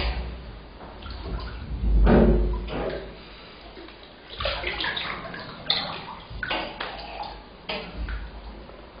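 Bathtub water sloshing and splashing around a person lying in the bath, in irregular bursts. There are deep rumbles about two seconds in, and a run of brighter splashes in the second half.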